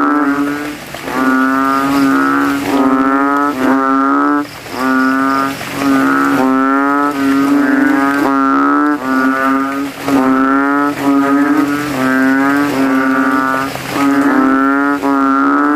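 Kaloula bullfrogs (kodok kintel) calling in a breeding chorus after rain. Loud, deep calls, each under a second long, repeat about once a second with neighbouring frogs overlapping. These are males calling against one another, each trying to be loudest.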